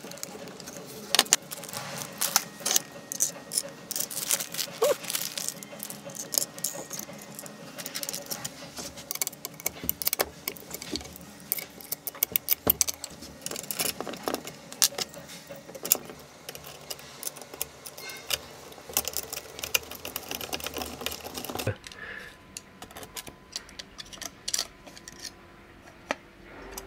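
Small metal hardware clinking and rattling: machine screws and hex nuts handled and fitted through a plywood plate carrying V-wheels. The quick clicks stop about four-fifths of the way through, leaving only a few faint ticks.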